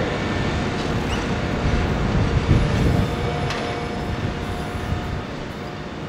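Bombardier VLocity diesel multiple unit running through a station without stopping: diesel engines and wheels on rail, with a steady tone over the rumble, fading as the train draws away.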